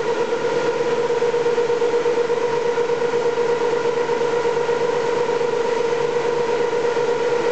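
Toshiba BTD 13R22 horizontal boring machine running with a steady whine over a mechanical hum, unchanging throughout.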